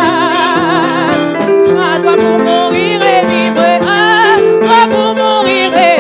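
Gospel praise song: singing with vibrato over held keyboard chords, continuous and steady in loudness.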